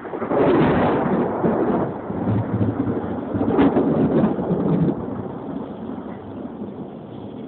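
Rolling thunder: a rumble that swells about half a second in, rolls on through several louder peaks, and dies down over the last couple of seconds.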